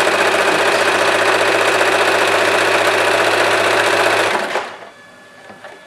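Usha Janome Allure electric sewing machine running steadily at speed, sewing a dense narrow zigzag (satin) stitch. It stops abruptly about four and a half seconds in.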